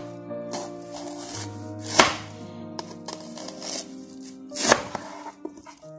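Chef's knife slicing a red onion into rounds, the blade knocking on the cutting board with each cut; two sharp knocks stand out, about two seconds in and near the end. Background music plays underneath.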